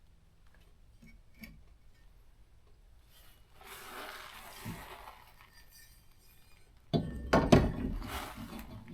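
Hard objects being handled: a couple of light clinks, a scraping rustle in the middle, then a loud clatter of knocks and bangs near the end.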